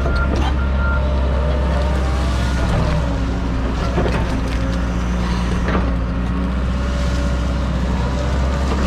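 John Deere 130G excavator's diesel engine running steadily under load as the hydraulics work, with scattered knocks and cracks of brush and roots being handled. A few short high beeps sound in the first second.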